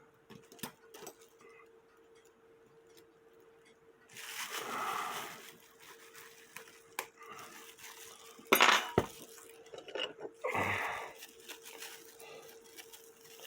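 Light metallic clinks and taps as the bird wire is bent and handled against the metal cuckoo clock movement, with a sharper cluster of clicks just past the middle and a couple of softer rustles. A faint steady hum runs underneath.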